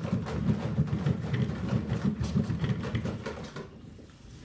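A One Fast Cat exercise wheel rumbling as it spins under a running kitten, with a rapid irregular knocking. The rumble slows and dies away about three and a half seconds in as the wheel comes to a stop.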